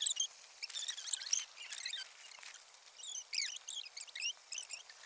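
Small birds chirping: many short, high chirps in irregular clusters, with a few faint clicks among them.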